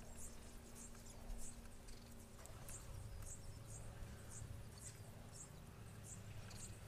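Faint, short high-pitched chirps repeating about twice a second from a small animal, over a low steady hum.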